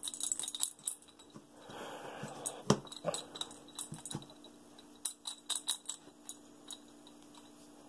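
A cat batting at a pom-pom toy on a string through the hand-hole of a cardboard box: irregular sharp taps and clicks of paw, toy and cardboard. There is a brief rustle about two seconds in and one sharp thump just before three seconds in.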